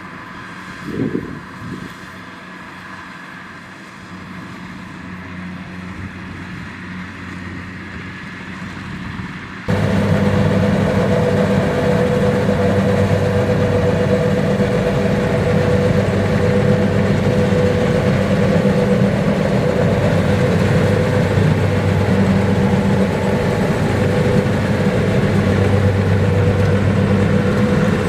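Kubota rice combine harvester's diesel engine running steadily under working load. It is fainter for the first third, then abruptly much louder and closer, with a steady deep hum and a higher drone above it.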